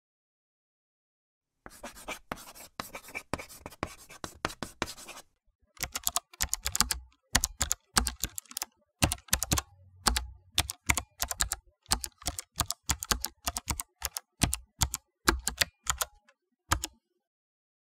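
Typing on a computer keyboard: after a short silence, a quick flurry of keystrokes, then a brief pause and a long run of separate key presses at an uneven pace, stopping shortly before the end.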